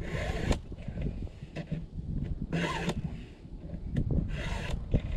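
Hand file rasping across the cutters of a Stihl MS 261 C-M chainsaw chain: a few separate file strokes, roughly two seconds apart, over a steady low rumble.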